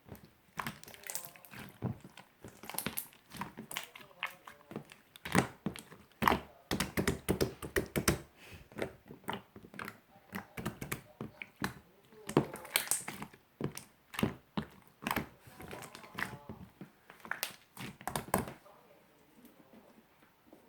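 Hands squishing, pressing and poking slime, giving a dense run of wet clicks and pops, which thin out about two seconds before the end.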